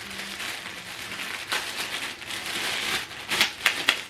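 Plastic packaging rustling and crinkling as accessories are unpacked and handled, with a few sharper crackles near the end.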